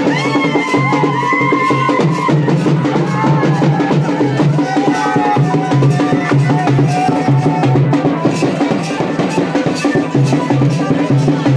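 Loud Garhwali (Pahari) folk dance music with a steady drum beat under a melody line.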